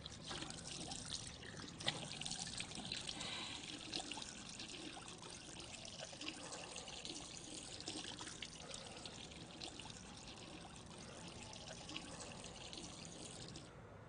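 Water running from a washbasin tap into the sink as a man splashes it onto his face. It cuts off suddenly near the end as the tap is turned off.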